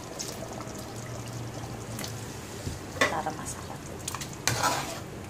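Chicken curry simmering in a pan on the stove while it is stirred, with a few sharp clicks of the utensil against the pan.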